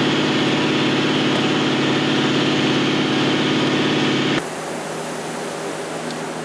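A motor runs steadily, then cuts off abruptly about four seconds in, leaving a quieter low hum.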